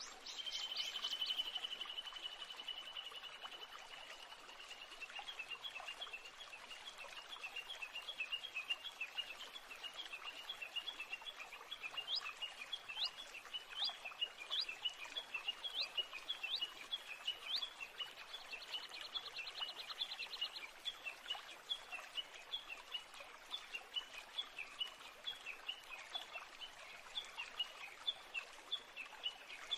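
Small birds chirping in quick, repeated short notes, with a held whistle near the start, a few sharp rising notes around the middle and a brief buzzy trill.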